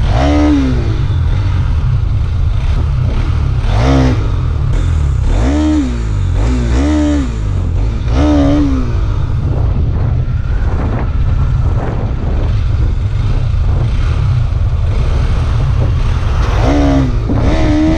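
Steady loud low rumble of a road vehicle, with short rising-and-falling voice sounds about six times.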